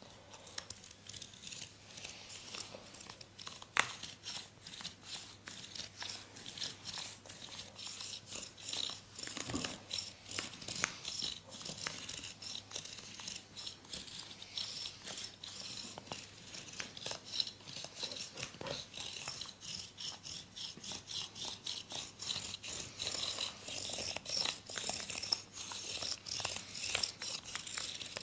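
Massage hands, fingers scratching and rubbing: a dense run of quick, crackly scratches, many a second, growing busier after about eight seconds, with one sharper click about four seconds in.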